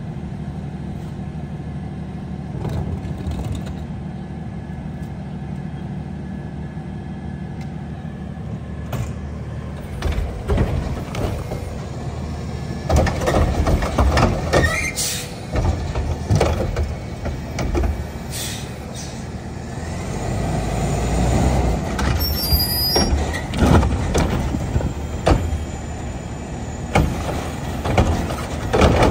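Front-loading garbage truck's diesel engine idling steadily, then its Curotto-Can automated arm at work from about ten seconds in: a run of knocks and bangs as a wheeled cart is grabbed, lifted and dumped into the carry can, with the engine swelling around twenty seconds in.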